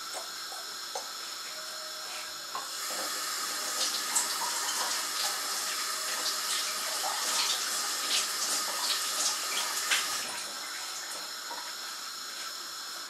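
Kitchen sink tap running as a tomato is rinsed under it. Water splashes in the sink, and the stream gets stronger a few seconds in and eases off after about ten seconds.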